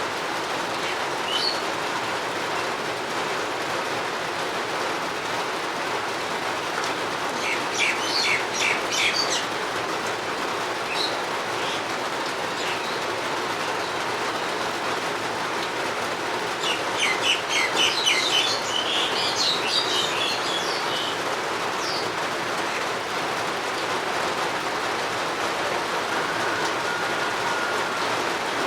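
Steady rain falling, with a bird singing quick runs of high chirps twice, about eight seconds in and again from about seventeen to twenty-one seconds, and a faint thin whistle near the end.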